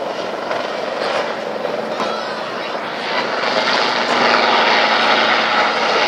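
Helicopter flying past overhead, a steady rushing engine and rotor noise that grows louder about halfway through.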